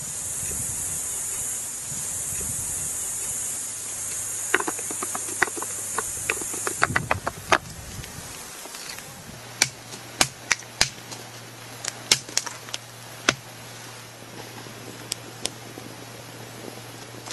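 A steady high hiss for about the first seven seconds, then scattered sharp pops and crackles of wood burning in a small metal camp stove. A faint low hum runs under the later part.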